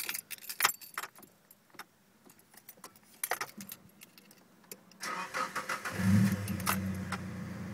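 Keys rattling and clicking in the ignition. About five seconds in, the 1992 Nissan S13's non-turbo SR20DE 2.0-litre four-cylinder cranks, catches a second later and settles into a steady idle. Its injectors are noisy, which the owner takes to be normal on SR engines.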